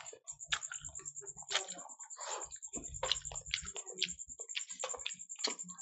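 Close-miked eating sounds: chewing with wet mouth smacks and fingers squishing through rice and fried fish, heard as many short irregular clicks and smacks. A faint steady high whine sits underneath.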